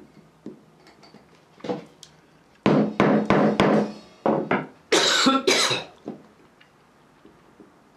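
A hammer striking the end of a screwdriver used as a punch on a soft lead grip sinker, bashing a groove into it for the grip wire. The blows come in quick runs of three or four, most of them between about two and a half and six seconds in.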